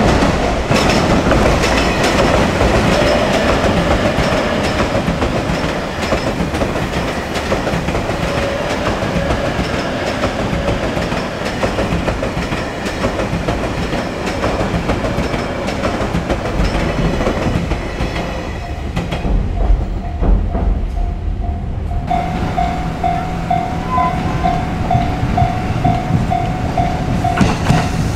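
Electric train passing on rails, with wheels clicking steadily over rail joints; the train noise thins out about two-thirds of the way through. Near the end a short tone repeats about twice a second.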